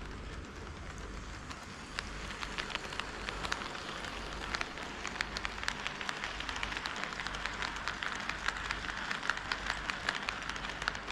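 HO-scale model train, a KATO D51 steam locomotive model, running on KATO Unitrack: a steady rolling hiss with rapid, irregular clicks of the wheels over the rail joints. The clicks grow denser from about two seconds in.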